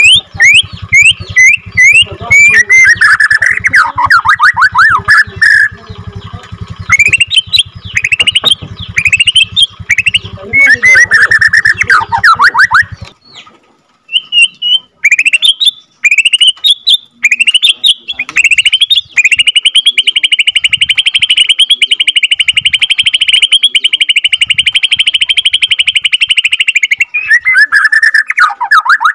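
Bornean white-rumped shama singing: strings of quick sweeping whistled notes, then after a short pause about halfway, a long rapid trill held for about eight seconds, the long roll the song is prized for, before more whistled phrases near the end.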